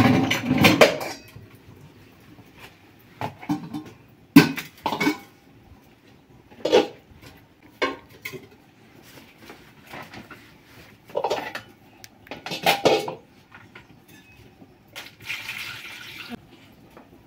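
Pots, pans and kitchen utensils clattering: a series of separate clanks and knocks, with a short hiss about fifteen seconds in.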